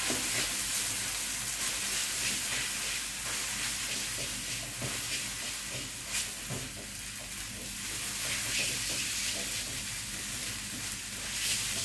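Instant noodles and scrambled egg sizzling in a wok as they are stir-fried, a spatula scraping through them against the pan with a few sharper knocks, one about six seconds in.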